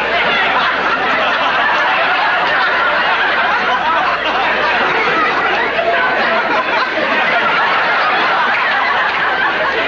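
A studio audience laughing loudly and without a break, mixed with the cast's own laughter.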